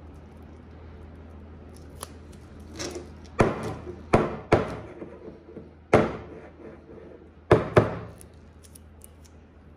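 A series of about eight sharp knocks and clatters of hard objects on a counter, bunched between about two and eight seconds in, over a steady low hum.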